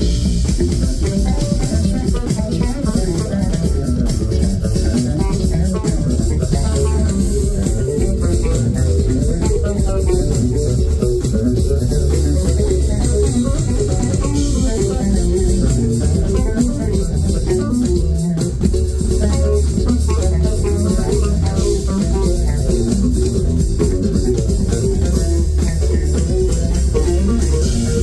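Live band music led by an electric bass guitar playing many quick notes, with a drum kit and cymbals behind it.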